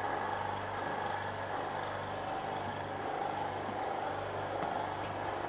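Steady low machine hum, even and unbroken.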